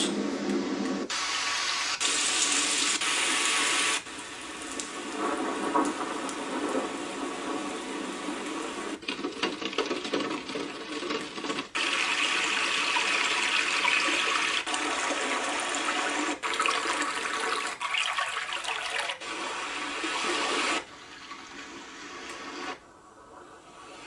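Magicteam white noise machine's speaker playing its built-in sounds one after another, mostly rushing water-like noise, each cut off abruptly for the next every one to five seconds as the sound selection is stepped through.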